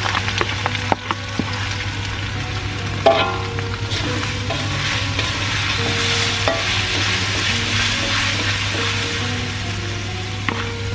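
Ground garlic, chilli and ginger paste sizzling in hot oil in an aluminium wok, stirred and scraped with a metal spoon, with scattered light taps and one sharp knock about three seconds in.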